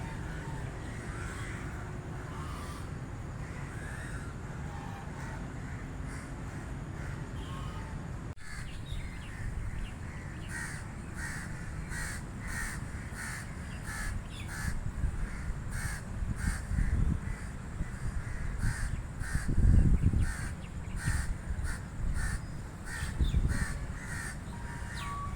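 Crows cawing over and over. The calls are scattered at first, then come in a quick, steady run after an abrupt break about a third of the way in. A few low rumbles rise under the calls, the loudest about two-thirds through.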